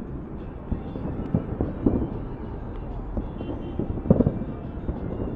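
Outdoor street and crowd ambience: a steady low rumble with scattered short knocks and no clear voices.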